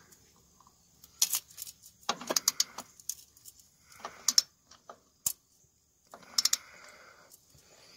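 Ratchet and socket clicking in several short bursts of metallic clicks with pauses between, as a new engine oil filter is snugged down about a half turn past hand-tight.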